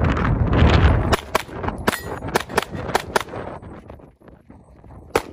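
Pistol shots fired rapidly, mostly in quick pairs, through the first part, then a pause of about two seconds while the shooter moves between positions before more shots near the end.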